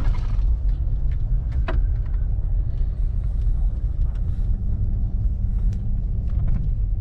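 Truck driving over a rough dirt trail: a steady low rumble with a few short knocks and rattles.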